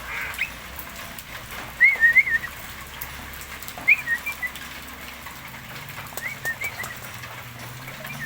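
Javan myna giving short whistled chirps, in three or four brief phrases about two seconds apart.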